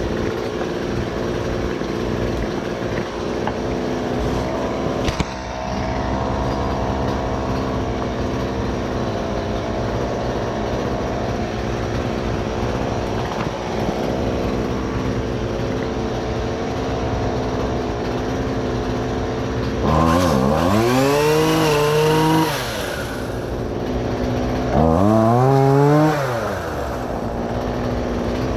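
Engine running steadily, then revved up sharply twice near the end, its pitch sweeping up and falling back each time.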